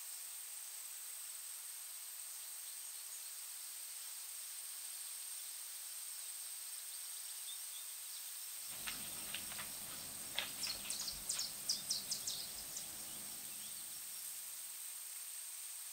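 Quiet woodland ambience: a steady high-pitched hiss with a thin constant tone on top. About nine seconds in, a run of sharp crackling rustles starts and dies away after a few seconds.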